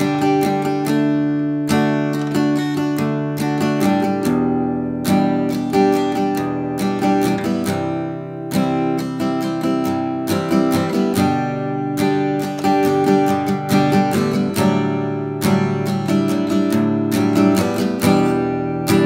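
Background music played on acoustic guitar: a continuous run of plucked and strummed notes.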